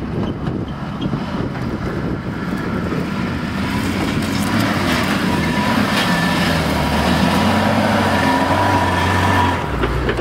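UAZ Patriot SUV engine working hard under load as it climbs a steep dirt slope. It grows louder and rises in pitch toward the top, then drops away suddenly near the end.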